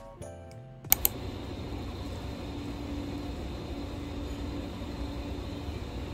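Music ends about a second in with two sharp clicks, followed by a steady background hum and hiss with a faint low tone that comes and goes.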